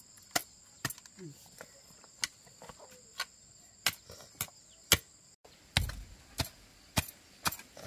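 Repeated chopping blows, a sharp knock roughly every half second to second, with a steady high insect drone behind them that stops about five seconds in.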